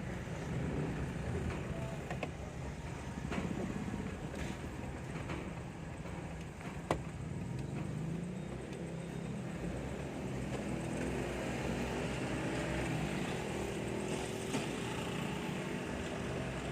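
Ambulance driving, a steady run of engine and road noise, with a few light clicks and one sharp click about seven seconds in.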